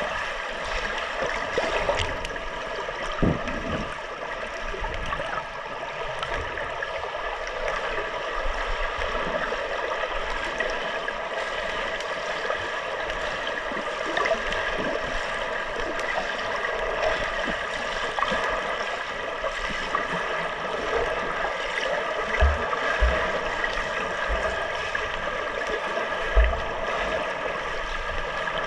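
Swimming-pool water heard with the microphone underwater: a steady muffled rushing hiss, with a few dull low thumps of water movement near the end.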